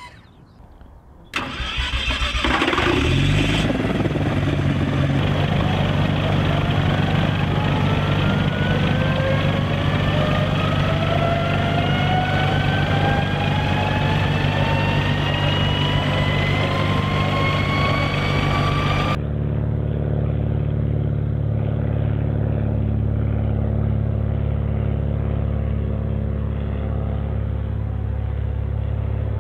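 PAL-V One gyroplane's engine starting abruptly about a second and a half in, then running with a whine that climbs steadily in pitch for about fifteen seconds as the vehicle gets under way. After an abrupt cut it becomes a steadier, duller engine drone.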